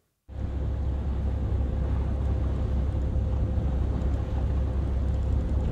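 Boat engine running steadily as the vessel moves along under way, a constant low drone with a faint steady hum above it.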